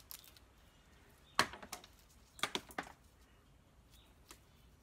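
Cracked butternut shell being picked apart by hand: scattered sharp clicks and snaps of hard shell, the loudest about a second and a half in, then a quick run of them around two and a half to three seconds.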